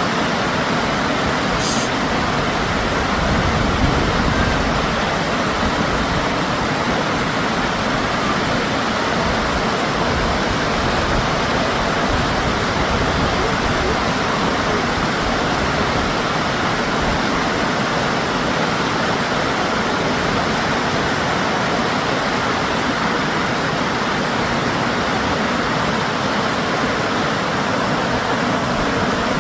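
River water rushing over rapids: a steady, even wash of water noise that does not change.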